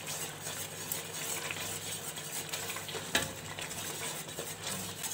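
A utensil stirring and scraping a steel pot of hot, sizzling sauce while beaten eggs are poured in, with one sharper knock against the pot about three seconds in. The sauce is kept moving constantly so the eggs don't set into an omelette.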